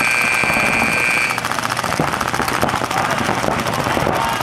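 A paintball field's game-start buzzer sounds a steady high tone that cuts off about a second in. Under it, many paintball markers pop in rapid, continuous fire as the players break out.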